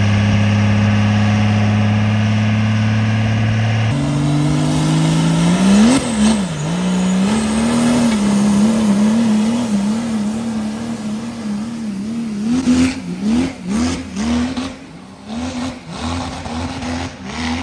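Diesel pickup truck engine at full throttle hauling a weight-transfer sled: held at a steady high rpm for about four seconds, then the pitch climbs and wobbles up and down as the truck digs down the track, and in the last few seconds the revs come and go in repeated surges.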